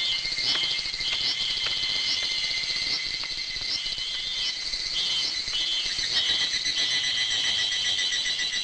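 Steady high-pitched insect chirring, with a short rising chirp repeating a little faster than once a second, and faint footsteps on the dirt.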